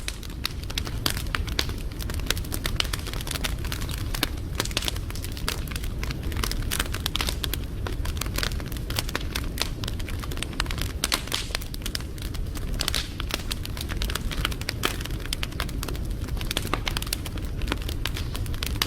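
Wood fire crackling and popping continuously, with many irregular snaps over a steady low rumble of burning.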